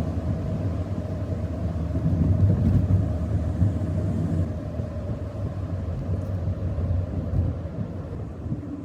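Strong wind gusting across the microphone, a low rumble that swells about two seconds in and eases off toward the end.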